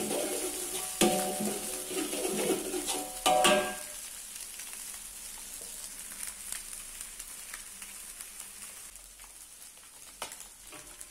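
A spatula scraping and stirring in a metal wok over scrambled egg and yellow spice paste frying in oil, a run of scrapes and clicks for the first three and a half seconds. After that the stirring stops and only a quiet sizzle of the frying remains.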